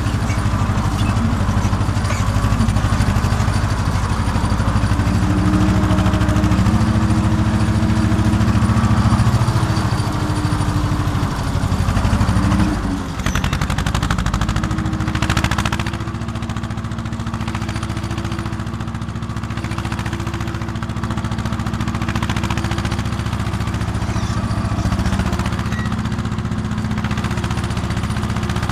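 Small tractor engine running steadily under load while pulling a ridging plough. About halfway through the note sags and shifts pitch, then settles into a steady run a little quieter.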